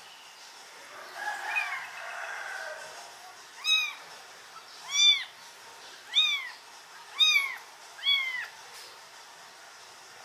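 Young kitten mewing while being bottle-fed. It gives a softer, rougher cry first, then five loud, high meows about a second apart, each rising and falling in pitch.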